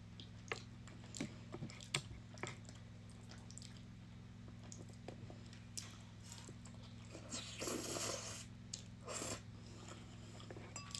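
Close-miked chewing of a large mouthful of pierogi and noodles: soft wet mouth clicks and crunches, with a longer, louder noisy stretch about seven seconds in, over a steady low hum.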